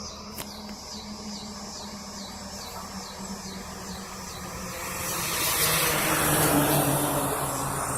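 A vehicle engine idles steadily with a high, repeating sweep about twice a second over the first half. Then a vehicle drives past, louder from about five seconds in and loudest around six to seven seconds.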